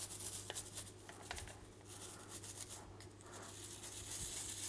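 Small hand scrubbing brush scrubbing a sink plug: quick, faint, scratchy strokes of the bristles.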